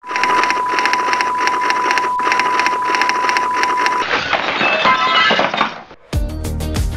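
Logo intro sound effect: a steady high beep over a fast pulsing noise for about four seconds, then a shifting swell that fades away. Music with a beat starts abruptly about a second before the end.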